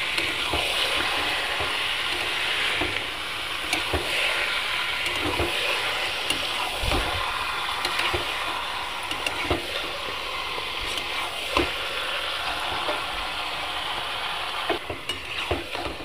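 Duck meat sizzling in hot oil and spice paste in a karahi while a metal spatula stirs it, scraping and knocking against the pan now and then: the meat being fried down with the masala (kosha).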